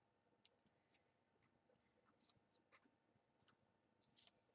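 Faint, irregular clicks and crackles of slime being squeezed and pulled in the hands.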